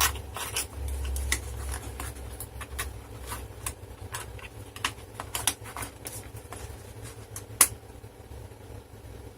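Small metal lock-picking tools clicking and clinking as they are handled and sorted, with irregular light taps and a sharper click about seven and a half seconds in, over a low steady hum.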